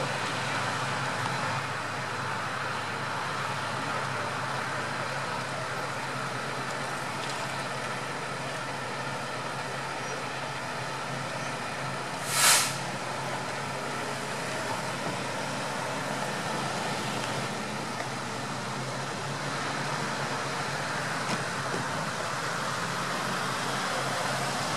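Steady road traffic passing through an intersection, with a low engine hum underneath. About halfway through there is one brief, loud hiss, the loudest sound.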